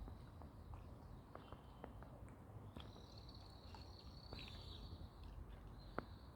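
Quiet outdoor background noise with a few soft clicks. A faint, thin high-pitched tone, like a distant bird or insect, starts about three seconds in and holds.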